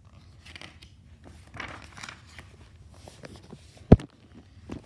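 A picture-book page being turned by hand: the paper rustles and slides, then a sharp thump about four seconds in, and a softer one near the end.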